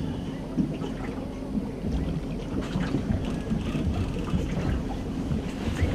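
Wind rumbling on the microphone aboard a boat, with scattered light clicks and splashes.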